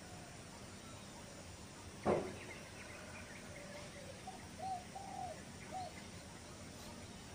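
Rural outdoor ambience with birds calling: a few short, arched calls in the second half over a steady background hiss. A sudden loud thump comes about two seconds in.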